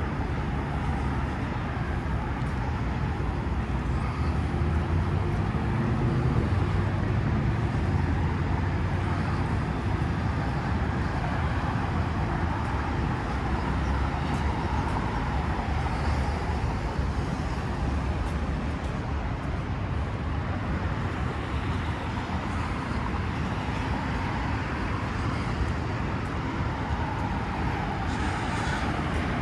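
Steady hum of distant road traffic, an even noise with no single vehicle standing out.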